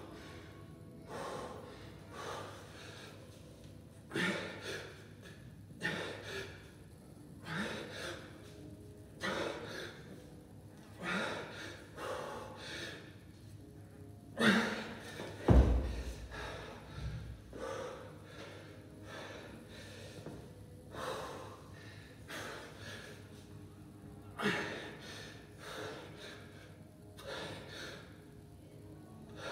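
A man breathing hard under exertion, a forceful puffing exhale every one to two seconds as he works a kettlebell. About halfway through comes a heavy thud, the kettlebell set down on the rubber gym floor.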